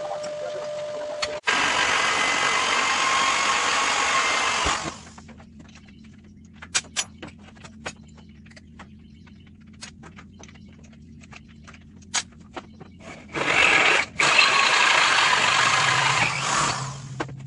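Handheld electric drill with a twist bit boring through steel plate. It runs in two stretches of a few seconds each, with a quieter gap of scattered clicks and ticks between them.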